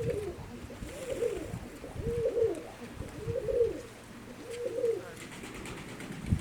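Domestic pigeon cooing: five short arched coos in a steady series, about one a second.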